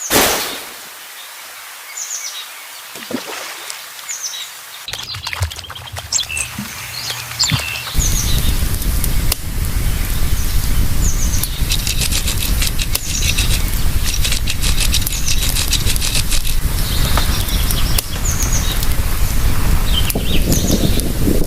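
Small birds chirping repeatedly in short high calls, with a sudden loud hit at the very start. About a third of the way in a loud steady crackling noise joins and runs beneath the birdsong.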